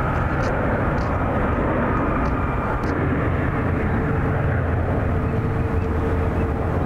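Airbus A350 jet engines running, a steady unbroken noise with a faint held whine that drops lower about three seconds in.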